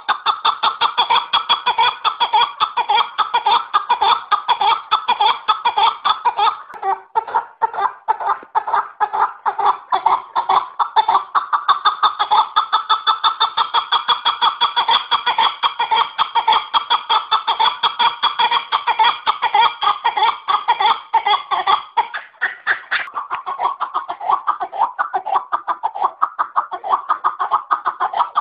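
Chukar partridge calls: a fast, unbroken run of repeated chuck notes that thins briefly about seven seconds in and again a little past twenty seconds.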